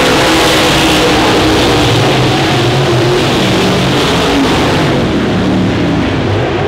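Several dirt late model race cars lapping together, their V8 engines revving and easing off as they pass, with several engine notes overlapping and rising and falling.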